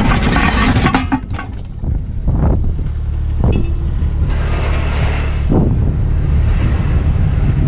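A diesel engine idling steadily, with sharp metal knocks and clatter in the first couple of seconds.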